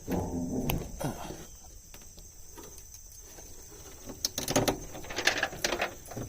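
Footsteps and rustling through dry brush, in irregular crunching bursts near the start and again in the second half, over a steady high drone of insects.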